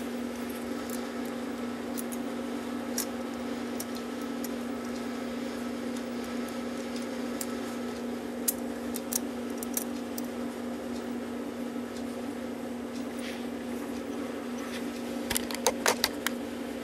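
A steady hum runs underneath while the brass plates and steel pillars of a Regula cuckoo clock movement are handled, giving a few light metal clicks midway and a quick cluster of sharper, louder clicks near the end.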